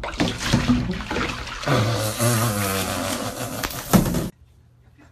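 Bathwater splashing hard in a tub as a cat tumbles off the rim into the water, with a loud cry in the middle. It cuts off suddenly near the end.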